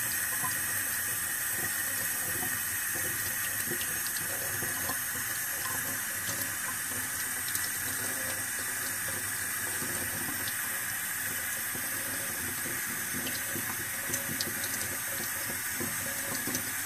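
Tap water running in a steady, gentle stream into a stainless steel sink, splashing over a seedling's roots held in the hands as peat moss is rinsed off.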